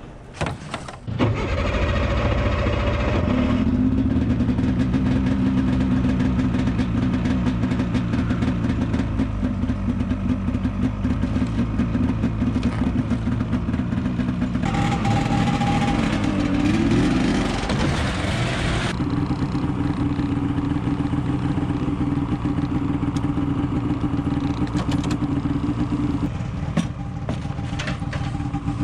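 Snowmobile engine starting about a second in, then idling steadily. For a few seconds near the middle it is revved higher before settling back to idle.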